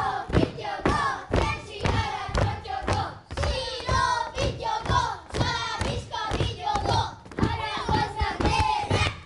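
Group of children singing a song together while dancing, their feet stamping in time on the stage floor at about two stamps a second.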